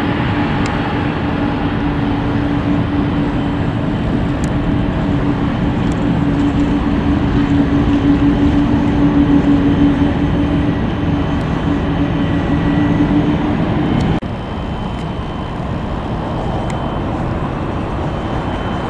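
Airbus A319 jet airliner on final approach with gear down, its engines making a steady drone with a low hum that grows louder, then fades slightly. About fourteen seconds in the sound cuts abruptly to the quieter, even jet noise of an approaching Boeing 737 MAX.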